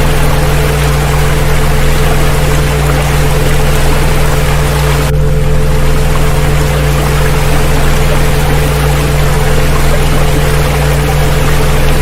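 Several steady electronic tones held together, low hums with a higher pair above them, mixed over a continuous recording of rushing water. About five seconds in, the water's upper hiss briefly thins, then fills back in.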